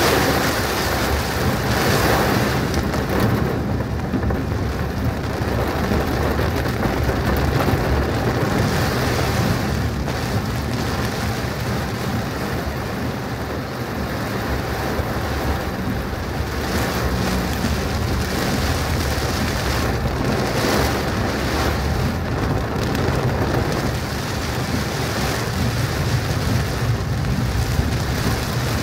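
Heavy thunderstorm rain pouring steadily, a dense hiss with a deep low rumble underneath.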